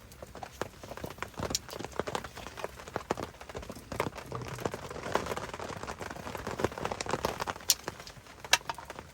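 Rain on a tent: irregular light taps of drops, with a soft steady patter that grows louder in the middle.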